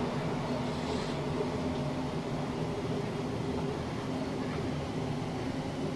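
Interior running noise of a Class 455 electric multiple unit under way: a steady rumble from the wheels and bogies with a faint low hum.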